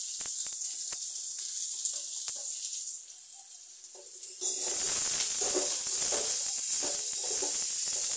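Chopped onion sizzling and frying in hot oil in a steel kadhai, stirred with a spatula, with a few light clicks of the spatula against the pan. The frying grows louder and fuller about four and a half seconds in.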